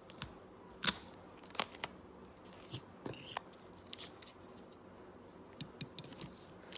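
Irregular small sharp clicks and snips of hands working with craft materials while a battery is fixed to a wooden board.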